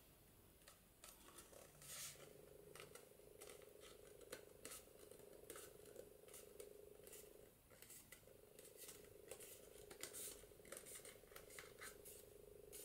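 Faint scattered clicks and rustles of a thick layered card journal cover being folded and creased by hand, over a faint steady hum.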